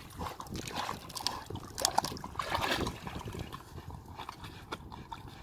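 Water splashing and sloshing as two Belgian Malinois wade and paw in the shallows at a pond's edge. The splashing is busiest in the first three seconds, then quieter.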